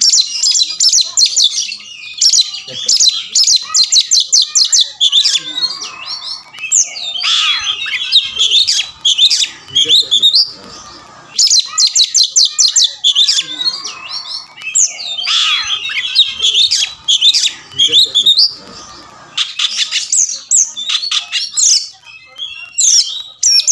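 Oriental magpie-robin (kacer) in full, continuous song, loud and high-pitched: runs of fast, evenly repeated trilled notes alternating with varied whistled and chattering phrases.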